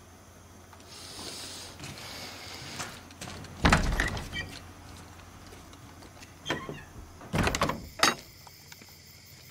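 Rustling, then several heavy wooden knocks and bangs: the loudest about four seconds in, and a quick cluster near the end as a wooden door is worked and shut.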